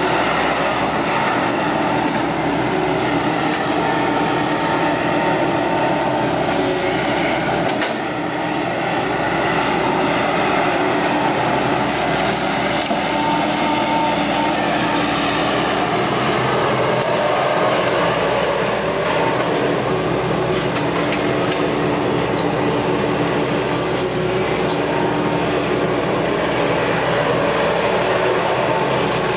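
Excavator's diesel engine and hydraulics running steadily while digging and loading, with brief high squeaks a few times.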